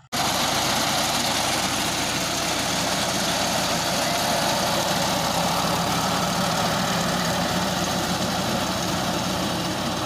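Loud, steady running of a John Deere tractor's diesel engine driving a front-mounted paddy reaper as it cuts standing rice.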